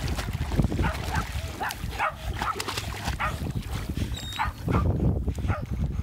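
Dogs barking over and over in short, sharp barks, about two or three a second, over the splashing of dogs swimming through shallow water.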